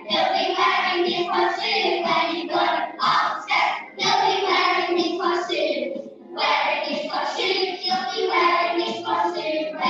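A group of young children singing together to a musical accompaniment, with a short break between lines about six seconds in.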